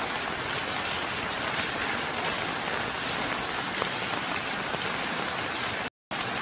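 Heavy rain with water streaming off a roof edge onto wet concrete: a steady hiss that cuts out for a moment near the end.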